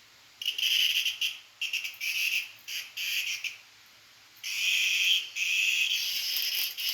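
A cicada held in a cat's mouth buzzing in short, uneven rasping bursts, then, after a brief pause, in a longer, nearly unbroken buzz through the second half.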